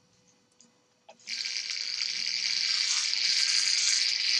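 Vintage violet ray high-frequency therapy device switched on. After a few faint clicks it starts about a second in with a steady, harsh electrical buzz and hiss.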